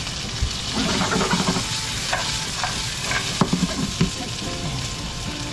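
Edamame sizzling in a frying pan over high heat, with irregular clicks and knocks as they are stirred.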